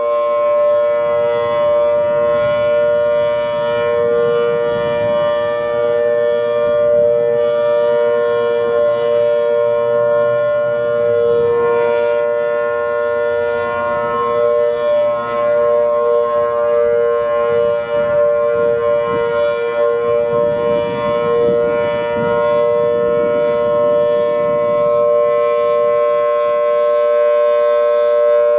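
Federal Signal Thunderbolt 1000T outdoor warning siren holding its steady Alert signal: a two-note chord from its 4/5-port chopper, held at a constant pitch, swelling and dipping slightly in level.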